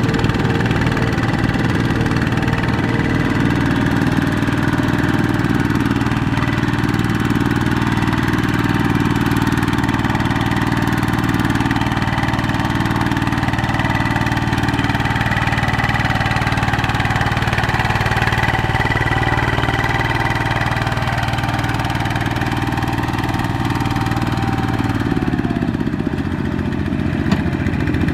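Single-cylinder diesel engine of a two-wheel walking tractor running steadily under load as it strains to pull a loaded rice trailer out of deep mud. Its pitch drops about 25 seconds in.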